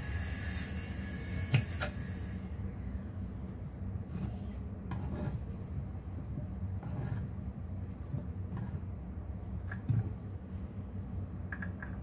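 Kitchen knife cutting tomato on a wooden cutting board: scattered knocks and rubbing of the blade and hand on the board as the pieces are cut and gathered into a bowl.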